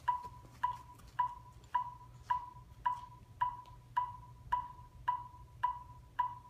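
Metronome click ticking steadily at a little under two beats a second, each click a short pitched tick, counting in the beat for a marching drill exercise.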